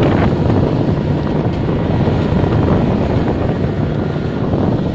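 Small wooden fishing boat under way through choppy sea: its engine running steadily and water rushing past the hull, with heavy wind noise on the microphone.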